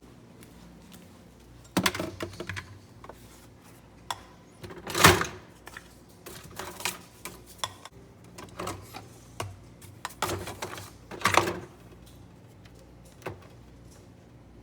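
A series of irregular clicks, knocks and clatters from hard objects being handled, the loudest about five seconds in and a busy cluster around ten to eleven seconds.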